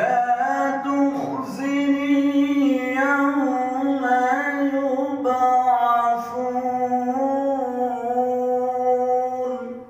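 A man reciting the Quran in a melodic, drawn-out chanting style into a microphone. It is one long phrase sung on a single breath, with held notes that waver in ornaments, and it breaks off near the end.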